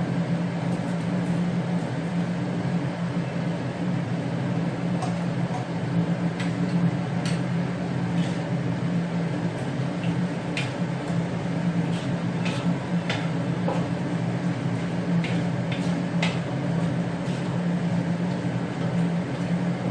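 Steady low hum of a kitchen range hood's exhaust fan. A wooden spatula knocks and scrapes against a wok every second or so through the middle stretch as stir-fried cabbage is tossed with the heat off.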